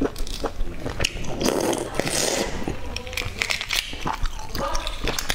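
Eggshell being cracked and picked off an egg by hand: many small crackling clicks, with a rougher scraping stretch about two seconds in.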